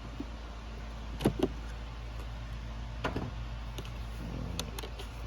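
Hands pulling a spare fuse from a car's under-hood fuse box: a few sharp plastic clicks, about a second in and again about three seconds in, with fainter ticks near the end, over a steady low hum.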